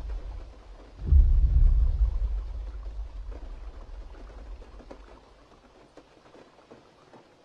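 A deep booming thud about a second in, dying away in a long rumble over several seconds, with faint rain patter beneath: the film's Tyrannosaurus footstep impact tremor.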